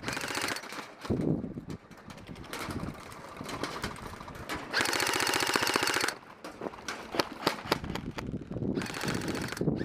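Airsoft electric rifle firing a full-auto burst of about a second and a half, a rapid even stream of shots near the middle, with scattered single shots and clicks around it.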